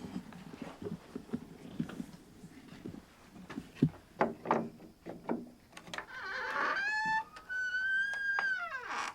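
Old wooden cabin door being worked: scattered knocks and wooden creaks, one sharp knock a little before halfway, then from about two-thirds in the hinges squeal in long pitched creaks that glide up and down.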